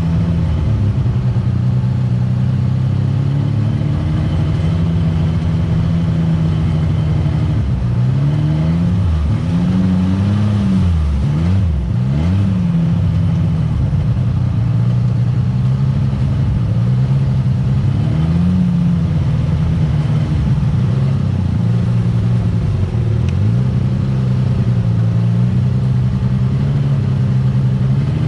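Side-by-side UTV engine running on a trail, its pitch dipping and rising as the throttle is let off and opened again, most often between about eight and thirteen seconds in.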